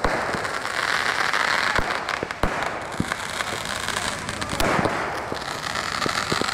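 Fireworks going off: a steady hiss of burning fireworks, broken by sharp bangs and pops at irregular moments.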